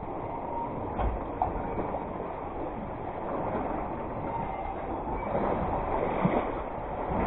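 Steady rumble and wash of a fishing boat at sea, with a few light knocks about a second in.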